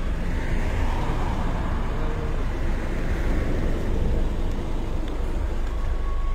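Car driving in slow convoy traffic, heard from inside the cabin: a steady low engine and road rumble, with a hiss of tyres and traffic that swells and eases over the first few seconds.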